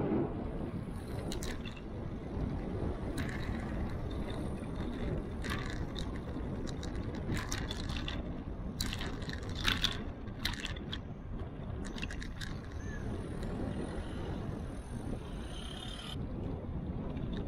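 Bicycle riding noise at a bike-mounted action camera: steady wind and road rumble with scattered sharp clicks and rattles.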